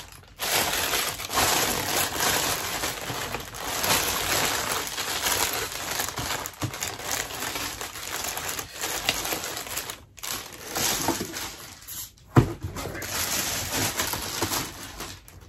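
A thin plastic bag crinkling and rustling as a bowling ball is pulled out of it inside a cardboard box, with one sharp knock about twelve seconds in.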